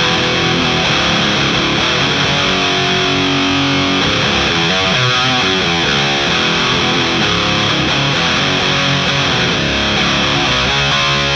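High-gain distorted electric guitar played through a DBE Swedish Chainsaw, a DIY clone of the Boss HM-2 Heavy Metal distortion pedal: chords and riffs at a steady loud level, with quicker changing notes in the middle.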